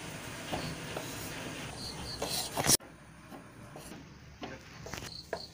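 Kitchen knife cutting through paneer and knocking on a wooden chopping board, with soft rubbing between strokes. The loudest knock comes just before three seconds in, then the sound drops away suddenly and a few softer taps follow.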